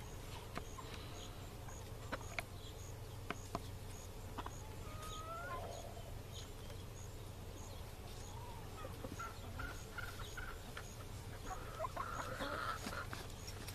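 Free-range chickens clucking softly while they forage, with a short rising call about five seconds in and a livelier run of clucks near the end. Faint scattered clicks and a low steady rumble sit underneath.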